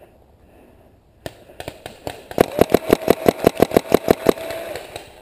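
Paintball marker firing: a few scattered shots, then a rapid string of about a dozen shots at roughly six a second, with a steady whine running under the rapid string.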